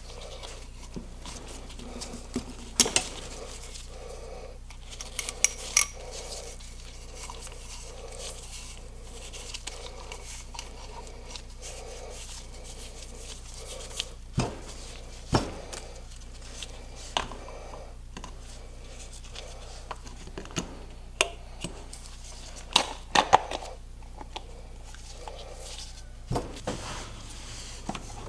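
Irregular metallic clinks and clicks from hand tools and metal parts being handled during a car oil change, over a steady low hum.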